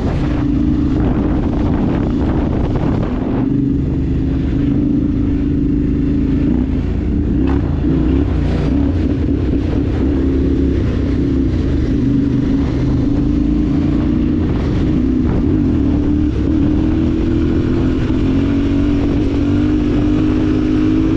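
Yamaha Ténéré 700 parallel-twin motorcycle engine running steadily under way, its note creeping up in pitch over the last few seconds as the bike speeds up.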